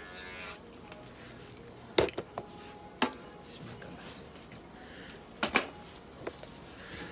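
A small electric hair clipper buzzes briefly and switches off about half a second in. Then come several sharp clicks and knocks: a cluster about two seconds in, a single loud one about three seconds in, and a pair about five and a half seconds in.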